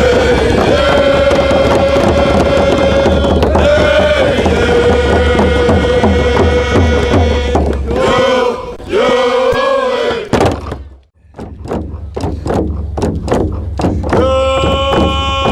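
Background music with long held, choir-like notes over a steady bass. It drops out briefly about two-thirds of the way through, comes back as short repeated notes, then returns to held notes near the end.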